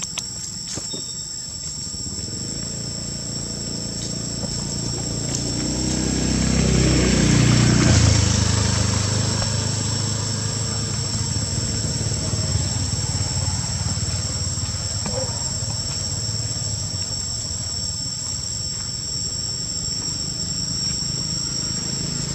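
Insects drone steadily at two high pitches throughout. A motor vehicle passes, loudest about eight seconds in, its engine note dropping in pitch as it goes by, and low engine rumble carries on afterwards.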